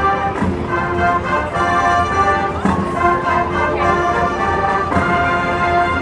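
Marching band playing, brass holding chords that change every second or so, with a few drum hits.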